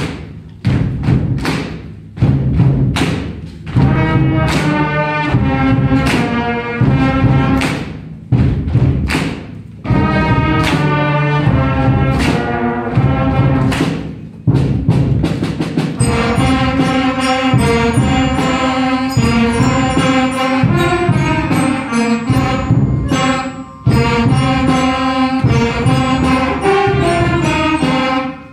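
School concert band playing: brass and woodwind chords with bass drum strikes, the strikes coming thick in the first few seconds. Higher flute parts join about halfway through.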